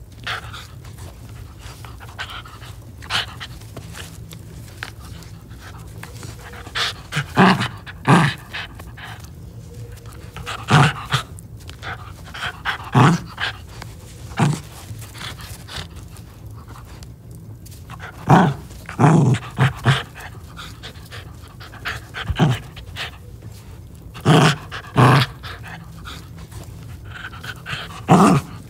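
Finnish Lapphund puppy making short, sharp breathy sounds in clusters every few seconds while being played with up close, over a steady low hum.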